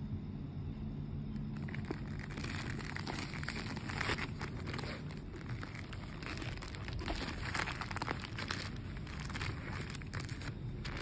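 Grey plastic courier mailer bag crinkling and rustling irregularly as it is gripped and turned over by hand, starting about a second and a half in, over a low background rumble.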